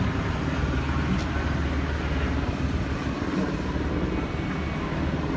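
A steady low engine drone over general street noise.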